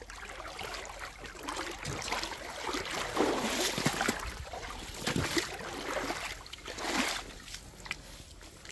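Footsteps sloshing through shallow water and mud at the water's edge: a few uneven, splashy steps with wet crackle between them.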